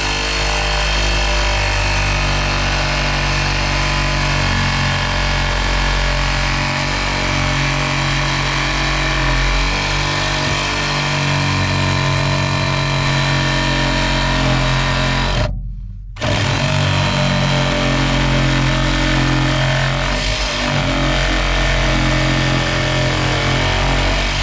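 A machine running loudly and steadily at a constant pitch. It cuts out suddenly for a moment about fifteen seconds in, then runs on.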